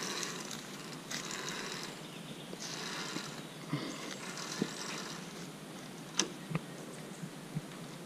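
Metal safety carabiners sliding along a steel cable overhead in several short rasps, with a few sharp clicks and knocks as the hanging wooden planks and hardware shift underfoot.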